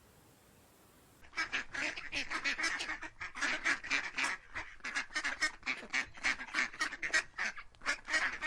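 Waterfowl calling: after about a second of quiet, a fast, unbroken run of short calls, several a second.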